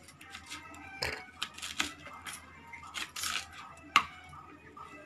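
Kitchen knife chopping rolled colocasia (taro) leaves on a plastic tray: a run of irregular sharp taps as the blade strikes through, the sharpest about four seconds in.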